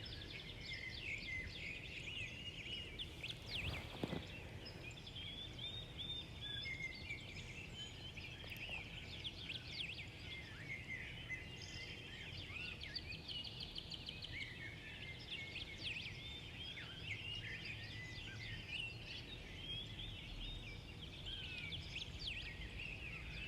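Faint chirping of small birds, many short rising and falling calls overlapping continuously.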